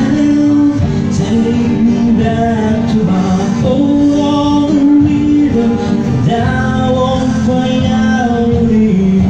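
A man singing a slow melody with long held notes, accompanied by his own acoustic guitar.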